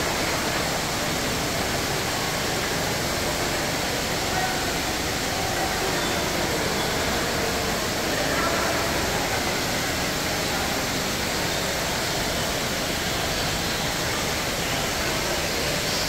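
Steady rush of falling water from an indoor fountain or water feature, even and unbroken, with a faint murmur of visitors' voices underneath.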